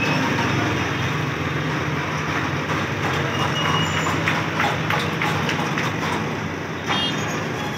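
Heavy truck's diesel engine running steadily as it slowly tows a multi-axle trailer with a heavy transformer load, with street noise and scattered clicks and knocks through the middle.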